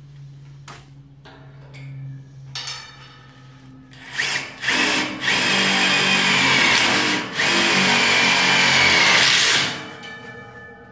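Cordless drill triggered in a couple of short blips, then run hard for about five seconds with a brief break in the middle, its whine wavering up and down in pitch.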